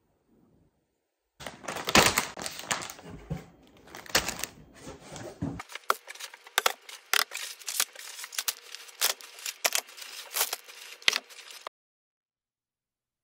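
Groceries being unpacked: plastic packaging crinkling and rustling with many sharp clicks and taps as items are handled and set down. It starts about a second and a half in, sounds fuller at first, turns thinner and more clicky halfway through, and stops shortly before the end.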